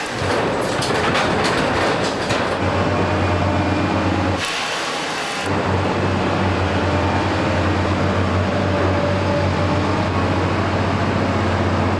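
Harsh metal-working noise to begin with, then heavy diesel construction machinery working in a riverbed: a steady low engine drone, broken for about a second near the middle by a hissing sound.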